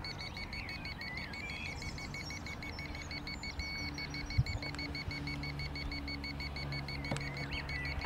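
Rapid electronic beeping from the model's toy radio-control gear: short, high, even beeps, about six a second, that keep going throughout. Birds chirp faintly, a low steady hum comes in about four seconds in, and there is one short knock just after.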